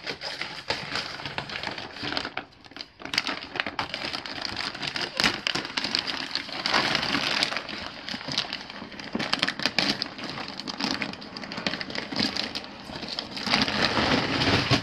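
Plastic wrapping on a compressed mattress crinkling and crackling irregularly as it is handled and cut open with scissors.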